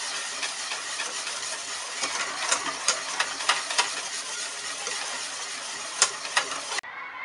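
Wire balloon whisk beating a thin matcha custard mixture in a stainless steel bowl: fast steady swishing and scraping of the wires against the metal, with sharp clicks of the whisk striking the bowl a few times around the middle and again near the end. The sound cuts off abruptly just before the end.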